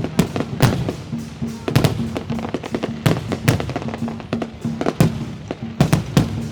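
Fireworks bursting in an irregular run of sharp bangs, several a second, over music playing in the background.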